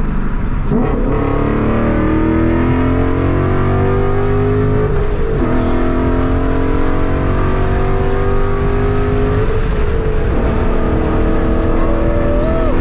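Car engine and exhaust under a hard full-throttle pull on E85 fuel: the pitch climbs steadily through each gear and drops back at the upshifts, near the start, about a third of the way through and about three quarters of the way through, before climbing again.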